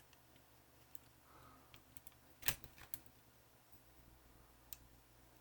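Faint room tone with a few light, scattered clicks and taps, the loudest about two and a half seconds in.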